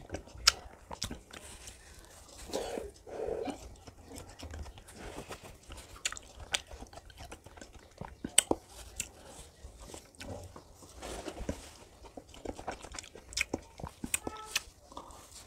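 Close-up sounds of a person eating ice cream: wet mouth smacks, chewing and bites, with sharp clicks scattered irregularly throughout.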